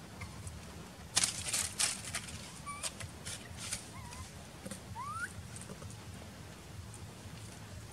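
Outdoor ambience: a steady low rumble, a cluster of sharp crackles and rustles about a second in with a few more a couple of seconds later, and a few faint short chirps, one rising in pitch about five seconds in.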